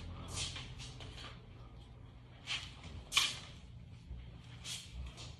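Single Kali stick swung in circles, whooshing through the air in a run of short swishes at irregular intervals, the strongest about three seconds in.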